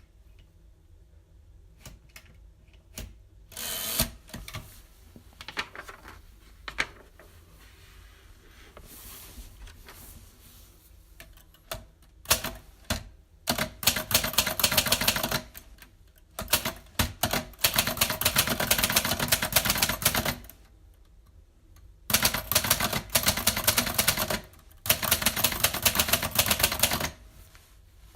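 Typewriter keys being struck. At first there are only scattered single strikes. About halfway through, fast runs of typing start, broken by short pauses.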